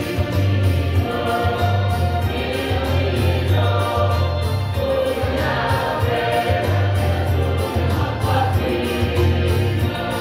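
A choir singing together in rehearsal, voices holding and moving between sustained notes, with a low pulsing hum underneath.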